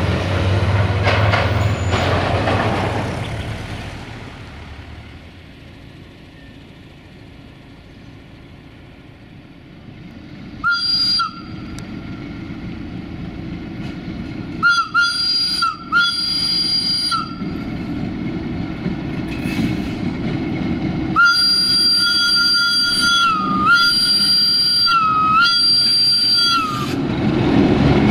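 Whistle-type horn of a CFR Marfă 060-DA (LDE2100) diesel locomotive, sounding its warning for a level crossing: one short blast, a few short blasts, then one long blast whose pitch dips twice. Before it, a dump truck and a van drive over the crossing. At the very end the approaching train's running noise rises.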